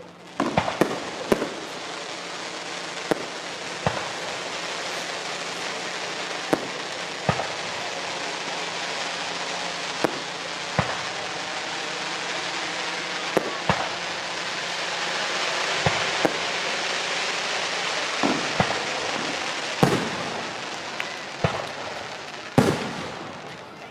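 Aerial fireworks display: a continuous dense crackling hiss, punctuated by sharp bangs of shells bursting at irregular intervals, every second or so. The loudest bangs come near the end.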